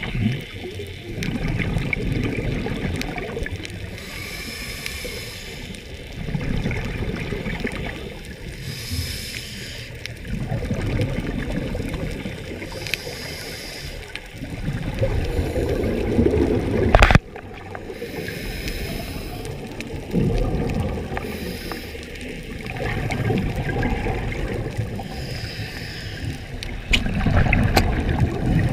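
Scuba diver breathing through a regulator underwater: hissing inhalations alternate with low rumbling bursts of exhaled bubbles, a breath every four to five seconds. A single sharp knock about two-thirds of the way through.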